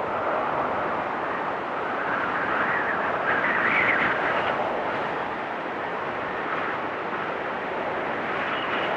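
Stormy wind rushing steadily through a forest, swelling in a gust about three to four seconds in and then easing.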